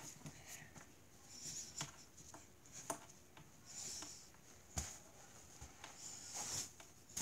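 Faint rustling and scattered soft taps from a person moving about while dancing, with one firmer knock nearly five seconds in.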